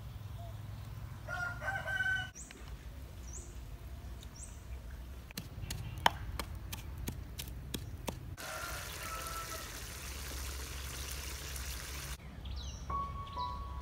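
A rooster crows, then small birds chirp. A wooden pestle knocks steadily in a clay mortar, about three strokes a second. A steady hiss of food sizzling in a pan follows, and background music begins near the end.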